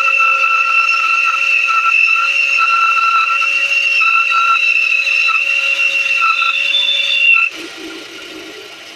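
Titan bandsaw running with a steady, high-pitched whine. About seven and a half seconds in the whine cuts off sharply and the level drops, leaving a much quieter, rougher running noise.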